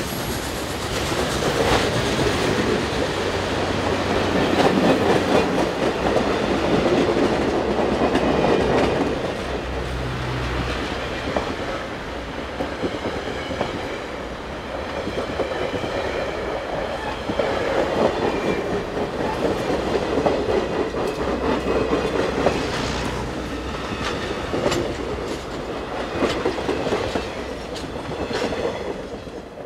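Passenger cars of a steam-hauled excursion train rolling past at track speed, a steady rumble of steel wheels on rail with repeated clicks over the rail joints. It fades near the end as the last car goes by.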